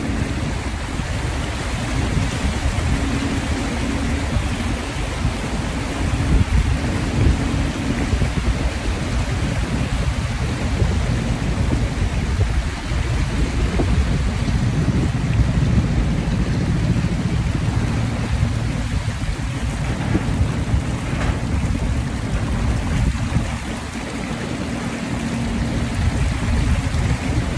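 Car driving through floodwater: a steady rush and wash of water churned up by the tyres, with a steady low hum underneath.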